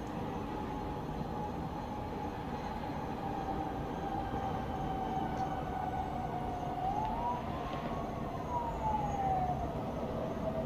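Distant town traffic hum at night, with a far-off siren wailing: a thin tone that drifts slowly down, then rises and falls once in a slow sweep in the second half.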